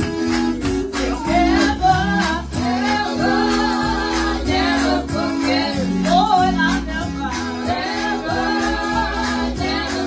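A gospel song: a woman singing into a microphone over sustained instrumental chords.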